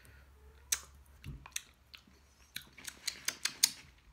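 A string of light, irregular clicks and taps close to the microphone, with one dull knock about a second in, as things are handled on a tabletop.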